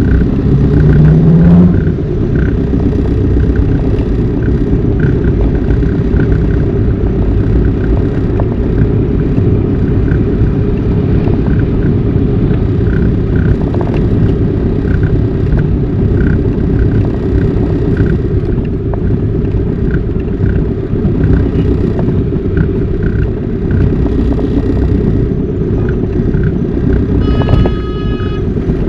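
Car running in slow traffic, heard from inside the cabin: a steady low engine and road rumble with a faint regular ticking. A car horn sounds briefly near the end.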